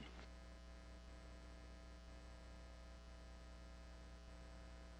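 Near silence: a faint, steady electrical hum on the broadcast audio line.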